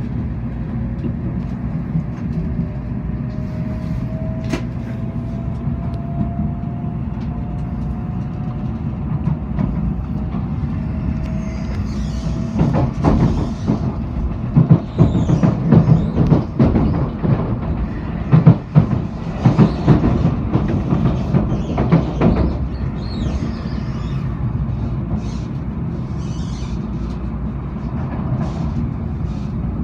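Nozomi Shinkansen train heard from inside the passenger cabin as it pulls away, with a steady low rumble and a faint whine rising slowly in pitch over the first ten seconds. About twelve seconds in comes a stretch of loud, irregular knocking and clatter lasting about ten seconds, then the rumble settles again.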